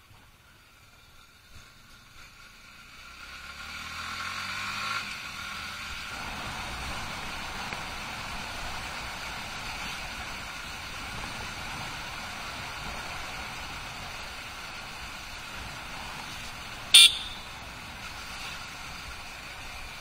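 Yamaha R15 V3's 155 cc single-cylinder engine pulling away from a stop, its revs rising and falling through the first gears over the first few seconds, then cruising under a steady rush of wind over the microphone. One short, sharp loud blast about three seconds before the end.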